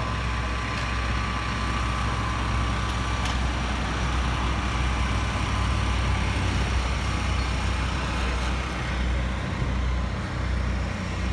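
Steady low rumble of idling vehicle engines.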